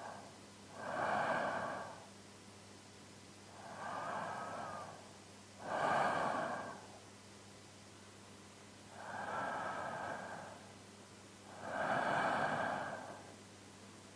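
A man's slow, even sleep breathing, close-miked for binaural ASMR. A softer breath is followed by a louder one, and the pair repeats about every five and a half seconds, three times in all.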